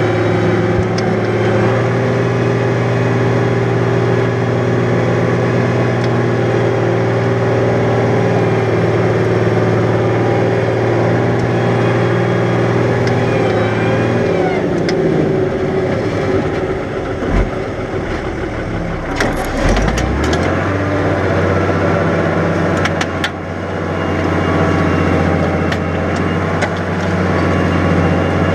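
New Holland 100-90 tractor's diesel engine running steadily under ploughing load. About halfway its note drops and wavers for several seconds, with a single knock, then it settles into a steady, slightly lower note.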